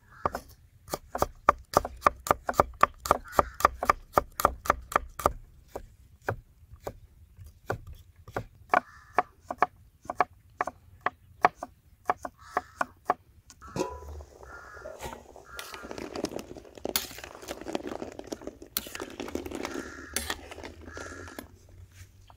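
A kitchen knife slicing peeled garlic cloves on a wooden chopping board, in quick even strikes of about four a second that later thin out to scattered cuts. Past the middle, a steadier noise rises under the occasional strikes.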